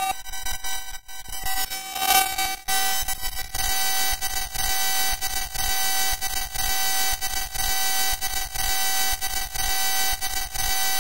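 FM-synthesized electronic tones generated from image scan-line colour values: a dense chord of steady tones, broken by frequent brief dropouts, thinner at first and filling out after about two and a half seconds.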